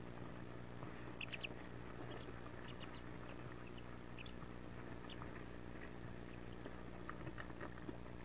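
Wood duck ducklings peeping: scattered short, high peeps coming irregularly, over a steady low hum.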